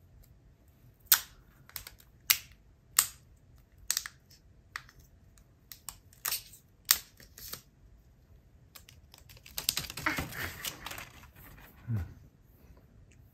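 Sharp plastic clicks and taps from handling a new Apple Pencil, about nine separate clicks spaced irregularly, then a few seconds of rustling from packaging about ten seconds in.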